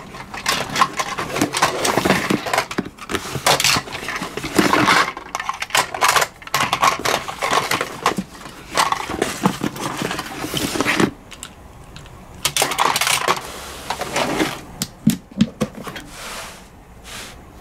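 Die-cast toy ambulances clattering and rattling against one another as a hand rummages through a pile of them. The clatter thins out about two-thirds of the way in, leaving a few separate clicks near the end.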